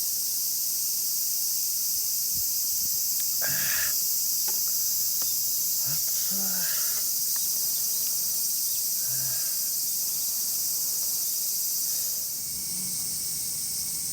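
Steady high-pitched chorus of summer insects, with faint voices a few times.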